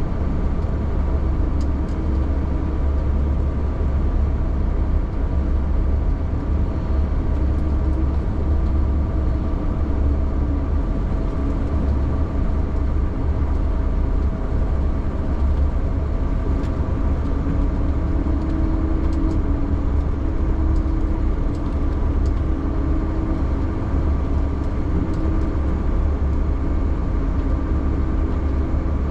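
A vehicle's engine running with a steady low rumble and a faint steady hum, heard from inside the cab while driving over snow.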